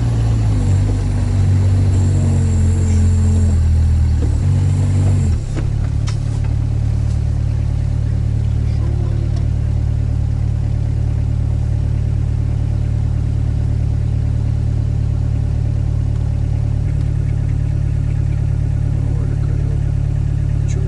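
Sherp all-terrain vehicle's diesel engine running under load while driving. Its note varies for the first five seconds or so, shifts abruptly, then settles into a steady drone.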